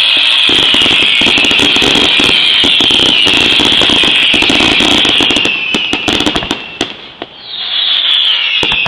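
Fireworks going off: a loud, high hiss with falling whistles and rapid crackling pops. It dies down about six seconds in and starts up again near the end.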